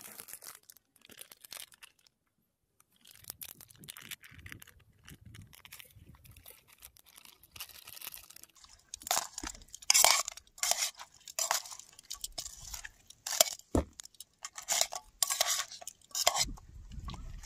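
A plastic sauce pouch crinkling as it is squeezed out. From about halfway through comes a run of loud clinks and crunches as metal tongs toss noodle salad with pork crackling in a stainless steel saucepan.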